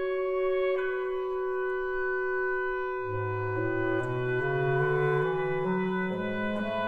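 Reed quintet of oboe, clarinet, saxophone, bass clarinet and bassoon playing live. Held notes sound for the first few seconds. About three seconds in, the low parts come in and climb step by step while the upper parts move above them.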